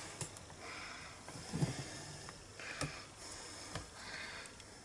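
Quiet handling sounds: soft rustling with a few light taps and a dull thump about a second and a half in, as hands work the hinged plate of a stamping platform and bring up an ink pad.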